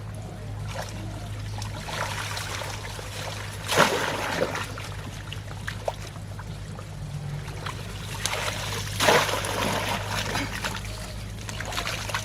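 Shallow water splashing and trickling, with two louder splashes about four seconds in and again about nine seconds in, over a steady low hum.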